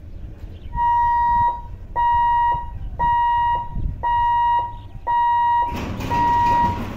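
Level-crossing boom barrier's electric warning hooter beeping six times, about once a second, at one steady high pitch, sounding while the barrier lowers to close the road for an approaching train.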